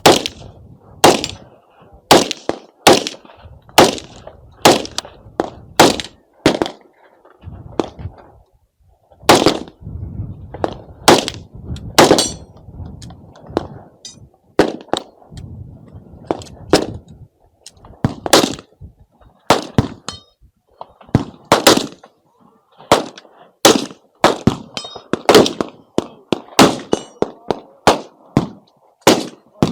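Gunshots in quick succession: loud cracks about once a second with fainter shots in between, a brief pause about seven seconds in, then a denser run of shots near the end.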